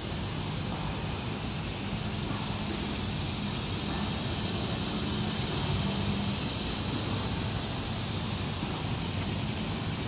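Chorus of dog-day cicadas: a steady, unbroken high whine from the treetops, over a low rumble of wind on the microphone.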